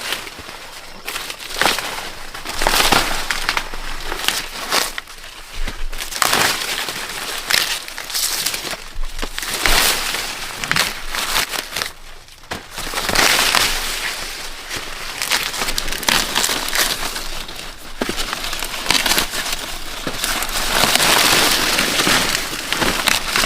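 Dry corn plants being handled: leaves and husks rustling and crackling in irregular bursts, with sharp snaps.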